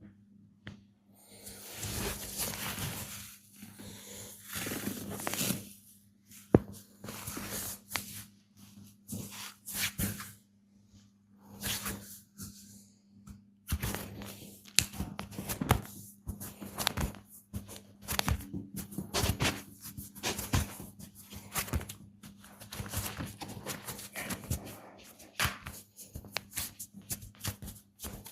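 Hands massaging bare skin, with long rubbing strokes in the first half and quicker rapid taps and strokes later. There is one sharp smack about six seconds in, and a steady low hum runs underneath.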